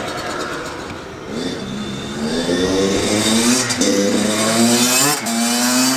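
Kawasaki KX100 two-stroke single-cylinder dirt bike engine revving as the bike is ridden, its pitch climbing in several rising pulls and easing off between them.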